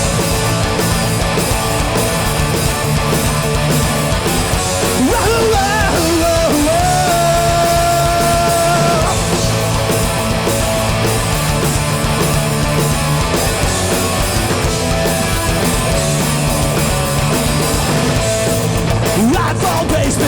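Live hardcore punk band playing at full volume: distorted guitars, bass and drums, with no vocals yet. A pitched line rises and is held for a few seconds about five seconds in.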